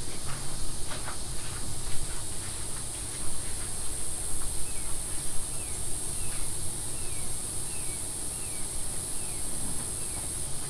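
Steady high-pitched drone of insects, with a bird repeating a short falling chirp about twice a second from about halfway through. A few faint taps come in the first few seconds.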